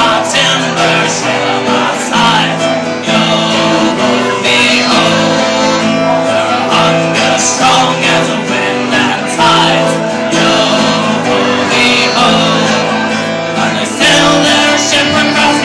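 Live acoustic folk music: an acoustic guitar strummed over held accordion chords that change in steps, with a voice singing.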